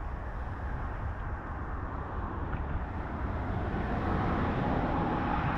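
Road traffic passing on a nearby road: a steady rush of tyre and engine noise, with one vehicle growing louder in the second half.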